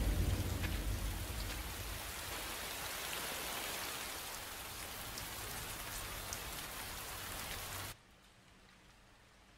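Steady heavy rain, an even hiss, with a deep low rumble at the start that fades over the first couple of seconds. The rain cuts off abruptly near the end, leaving only faint room tone.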